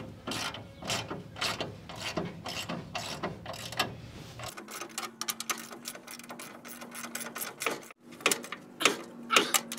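Ratchet wrench clicking in quick runs of strokes as it tightens a nut on a car's front suspension.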